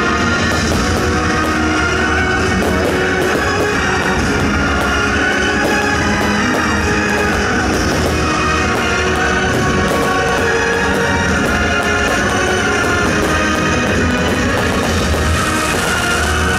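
Loud rock music with guitar and drums, steady in level.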